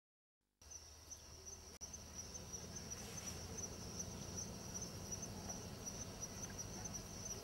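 Insects trilling steadily at one high, even pitch over a low background rumble, coming in about half a second in after silence.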